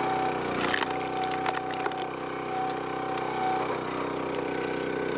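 Gas engine of a Countyline 25-ton hydraulic log splitter running steadily while the wedge drives through a log round. The wood cracks and splinters in a few sharp snaps, starting about a second in and again around two seconds.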